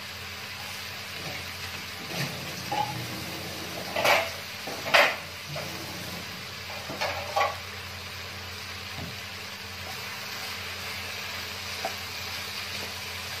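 Shredded carrot and jicama lumpia filling sizzling in a wok, stirred with a wooden spatula in a few short scraping strokes, the loudest about five seconds in, over a steady frying hiss.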